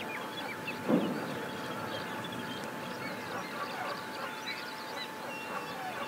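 Outdoor spring ambience from a wetland nest cam: many small birds chirping and calling in the background, with one short, loud, low sound about a second in.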